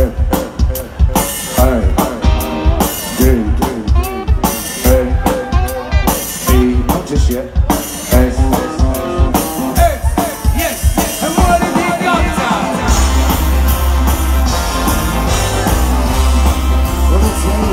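Live ska band playing through a PA, heard from within the crowd: a pounding drum-kit rhythm with a winding melody over it, then about 13 seconds in the full band comes in with a heavy steady bass.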